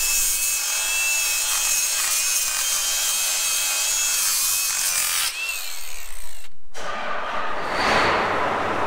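Handheld power tool cleaning up metal on an implement's wheel hub, running with a steady high whine and a loud abrasive rasp, ahead of a wheel-bearing check. It winds down with a falling pitch about five seconds in, and after a brief gap a rougher hissing noise follows.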